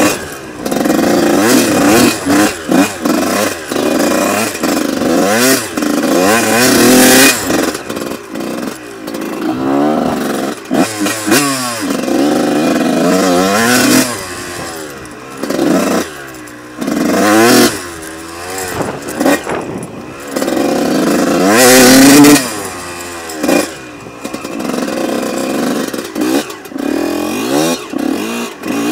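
Honda CR two-stroke motocross bike being ridden hard on a dirt track, its engine revving up and cutting back over and over as the throttle is opened and shut through the ruts.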